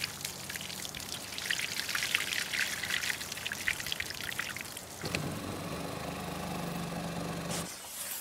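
Water poured from a plastic jug, splashing and spattering onto the glass of solar panels. About five seconds in it gives way to a steadier, pitched running sound that cuts off shortly before the end.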